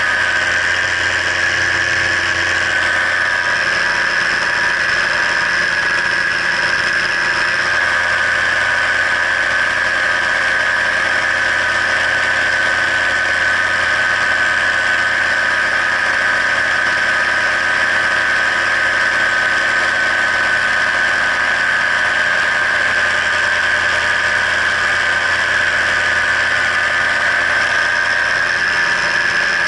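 Paramotor engine and propeller running steadily in flight: a constant engine drone with a high whine over it, holding the same pitch and level throughout.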